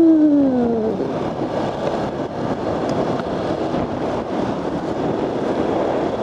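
Motorcycle riding noise: steady wind and road rush on the microphone under the running engine. About a second in, an engine note falls in pitch and fades out.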